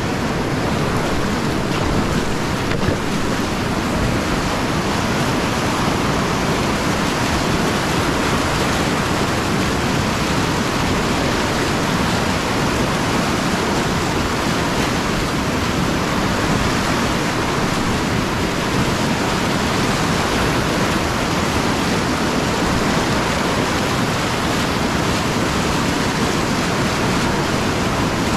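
Whitewater rapids rushing loudly and steadily around a kayak running through them, heard up close from the boat.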